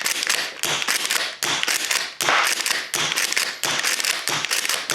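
A&K Winchester Model 1892 gas-powered airsoft lever-action rifle fired in rapid succession. The lever is worked between shots, and each cycle of clacks and a shot comes about every 0.7 seconds, roughly seven in all.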